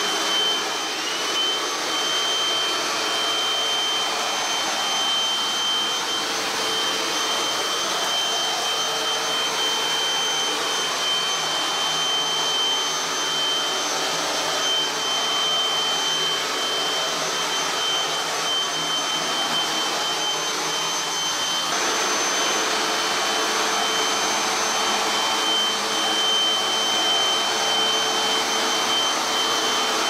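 Cordless stick vacuum cleaner running steadily: a continuous rushing airflow with a steady high motor whine. Its tone shifts slightly about 22 seconds in.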